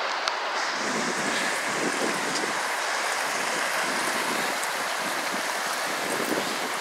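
Shallow mountain creek rushing over rocks, a steady rush of water.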